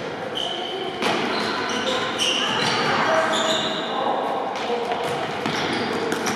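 Indoor futsal play in a sports hall: sneakers squeak in short chirps on the court floor, the ball thuds off feet a few times, and players and spectators shout, all echoing in the large hall.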